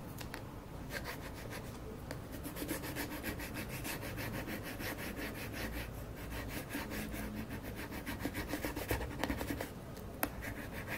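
Scratch-off security coating on a verification sticker being scraped off in quick, repeated back-and-forth strokes, with brief pauses. A single click just after the scraping stops.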